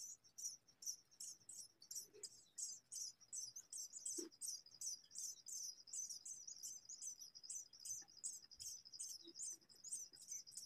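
House sparrow nestlings begging: a faint, rapid, unbroken series of short, high-pitched cheeps, about four a second.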